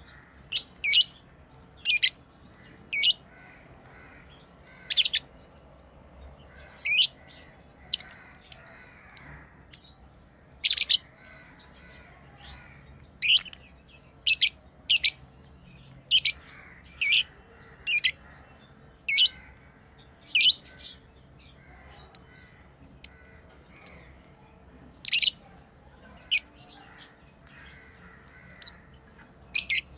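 Pet lovebirds giving short, high-pitched chirps at an uneven pace of about one a second, with softer chatter between them.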